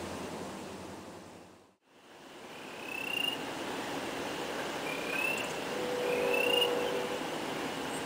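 A steady low hum fades out, and a night recording fades in. Against a background hiss, frogs give short peeps that slide upward, one every second or two, and a faint low held tone sounds about six seconds in.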